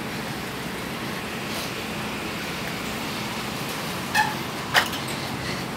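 Steady city street traffic noise from passing cars. About four seconds in there are two short, sharp sounds, the first with a brief ringing tone.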